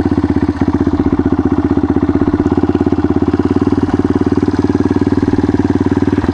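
Yamaha XT dual-sport motorcycle's engine running steadily at low speed, its exhaust pulsing evenly, heard close up from the bike.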